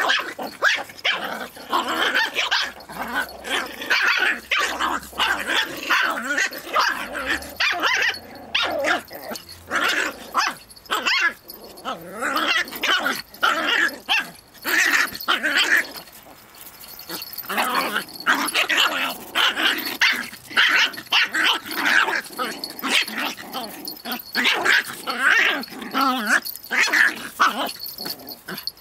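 Two small dogs, a puppy and a young white dog, play-fighting: rapid, near-continuous growling and barking, with a short lull a little past halfway.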